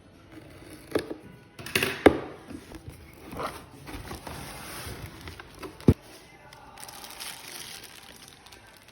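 Handling noises: rustling and crinkling, broken by a few sharp knocks, the loudest just under two seconds in.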